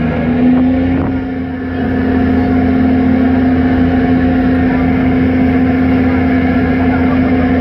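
Passenger ferry's engines running with a steady drone, the deep hum rising slightly in pitch about half a second in, then holding steady.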